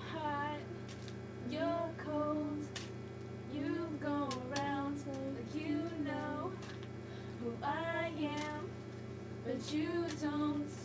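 Young girls singing a song in short phrases with held notes.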